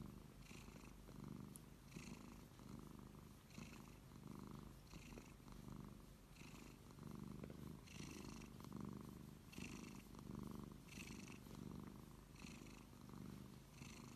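A domestic cat purring softly and steadily while being stroked. The purr swells and fades with each breath, about once every second and a half.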